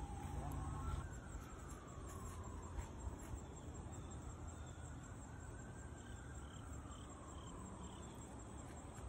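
Outdoor ambience: a steady low rumble under a faint whine that slides slowly down in pitch and back up, with a short run of faint, evenly spaced high chirps in the second half.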